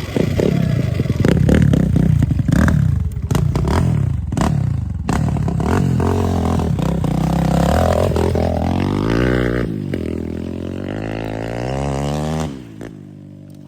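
Sur-Ron Ultra Bee electric dirt bike ridden over rough ground: clattering and scraping knocks from the bike and brush. The motor's whine then rises and falls with the throttle and drops away about twelve seconds in.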